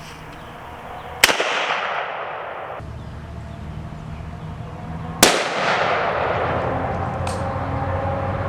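Two rifle shots from an AKM chambered in 7.62×39, about four seconds apart, each followed by a long echoing decay. A faint click comes near the end.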